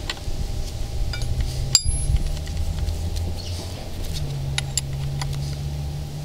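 Sharp metal clinks of an open-end wrench and brass fitting on a diamond core drill motor's water feed kit as it is tightened: one about two seconds in, a few more around five seconds. A steady low hum runs underneath.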